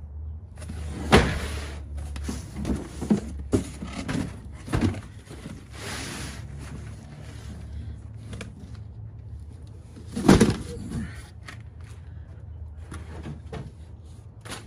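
Cardboard boxes being shifted and set down at a pickup truck's tailgate: a series of knocks and rustles, loudest about a second in and again around ten seconds, with several smaller knocks in between.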